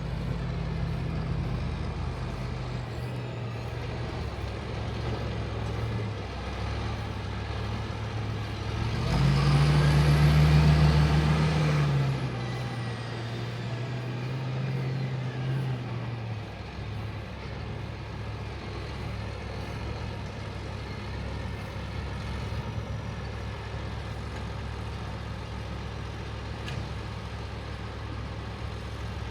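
John Deere 8270R tractor's diesel engine running steadily while working with a liquid manure tanker. It grows louder and its note rises for about three seconds around ten seconds in, then settles back to a steady run.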